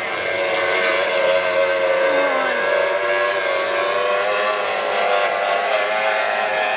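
High-revving outboard engines of several race boats running flat out together, a steady high-pitched engine whine with the pitch wavering slightly as they race.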